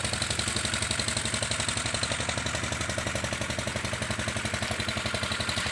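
Small ketek motorboat engine chugging steadily with an even, rapid beat.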